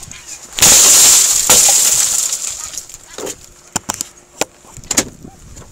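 A car window being smashed in: a sudden loud crash of shattering glass about half a second in, lasting about a second and trailing off as the fragments fall, then a few sharp clinks and knocks.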